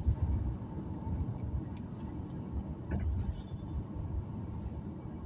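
Car driving along a road: a steady low rumble of engine and tyres, with a few faint clicks and rattles.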